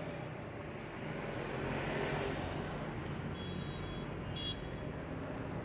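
Steady low vehicle engine hum, even throughout, with a few short high chirps about three and a half seconds in.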